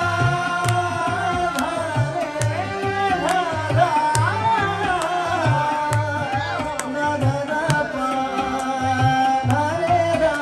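A man singing a song live, accompanied by a harmonium's sustained reedy chords and a hand drum keeping a steady beat of low strokes.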